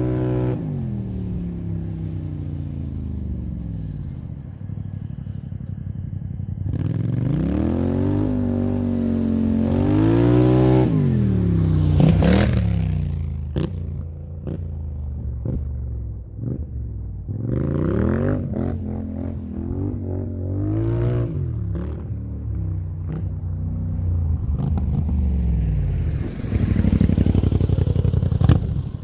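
Polaris Scrambler 850 ATV's parallel-twin engine, fitted with a Big Gun EXO exhaust, revving and accelerating in several hard bursts, its pitch climbing and falling each time. Sharp clatter comes through around the middle, and the engine is closest and loudest near the end as the quad pulls up.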